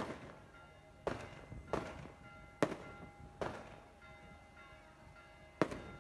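Fireworks or firecrackers going off: about six sharp bangs at uneven gaps, each with a short echo, the first the loudest. Faint music with held notes plays underneath.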